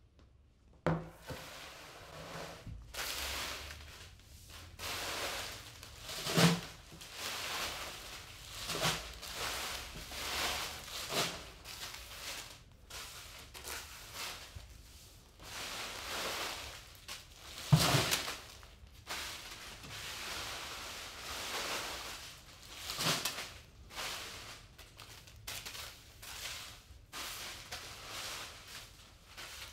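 Gold-wrapped fortune cookies being gathered by hand off a hard floor and dropped into a plastic bin: the wrappers crinkle and rustle in repeated bursts, with a few sharp knocks, the loudest about two-thirds of the way through.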